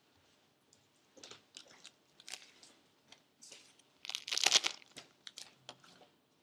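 Crinkly plastic packaging being handled: scattered crackles, then a louder crinkling about four seconds in that lasts about a second.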